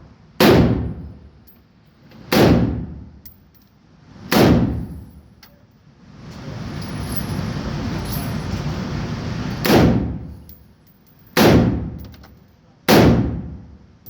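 AR-15 pistol fired six single shots, about two seconds apart, with a longer pause midway; each shot rings on for about a second. In the pause there is a steady rushing noise for a few seconds.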